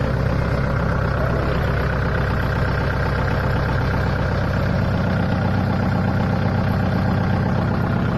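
Engine of a 4x4 vehicle running at a steady pace while it drives along, an even low hum that neither rises nor falls, heard from the open back where the riders stand.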